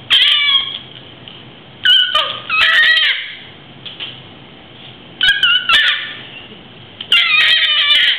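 Baby squealing in four bouts of high-pitched, downward-sliding shrieks with short pauses between them.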